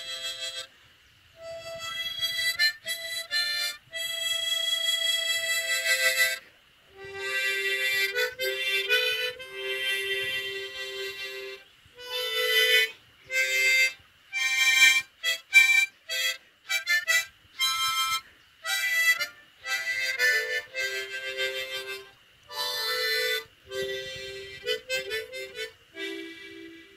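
Harmonica playing a melody of held notes, two-note chords and short quick runs, with brief pauses between phrases.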